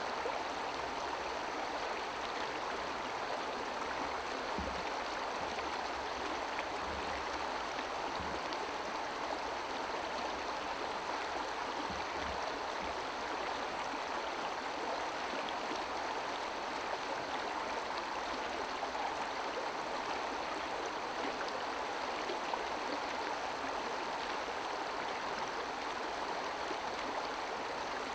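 A river flowing steadily over stones, a constant rush of water.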